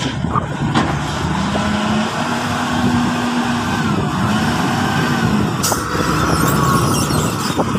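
Large forklift's engine running and revving as it drives, a steady drone whose pitch rises about a second in and falls back after about five seconds.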